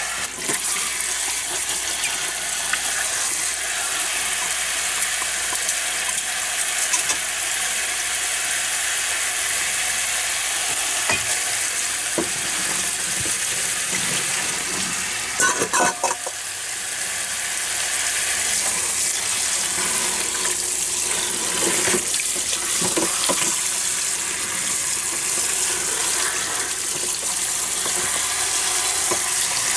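Water running steadily from a kitchen faucet's spray head onto plastic-bagged chicken ham in a stainless steel sink, cooling it under the tap: an even hiss of splashing water. About halfway through there is a brief clatter as the bags are handled.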